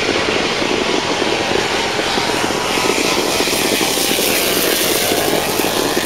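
Loud, steady roar of a drag racing vehicle running at full power.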